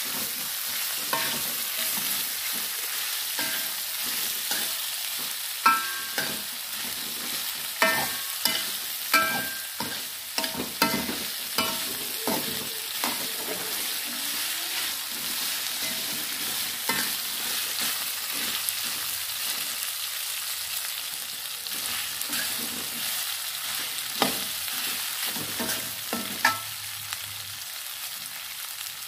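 Spiced pieces of beef skin sizzling steadily as they fry in a metal wok, while a metal spatula stirs them and clanks irregularly against the wok, some clanks ringing briefly. The clanking is busy at first, thins out in the middle and picks up again near the end.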